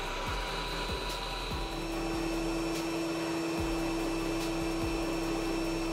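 Steady blowing rush of a hot air rework gun. About a second and a half in, a steady hum tone joins it.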